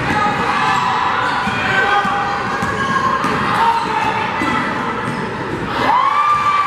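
Basketball game on a hardwood gym court: sneakers squeaking on the floor and a basketball bouncing, in a large echoing gym with voices in the background. About six seconds in comes one longer squeak that rises and then holds.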